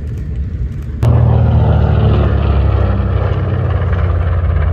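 Propeller aircraft's piston engines droning loudly and steadily, cutting in abruptly about a second in.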